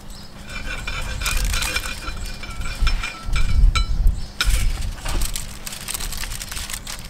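Crinkling and clicking of a foil-lined tray and small clinks as hands arrange whole raw trout on it. There are bursts of low rumble about halfway through.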